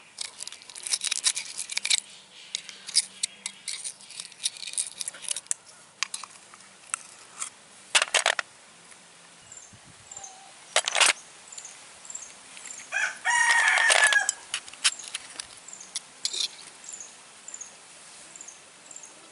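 A rooster crows once, about two thirds of the way through, the loudest sound here. Around it come short clicks and scrapes of a knife blade working open snail shells, and a faint high chirp repeating regularly in the second half.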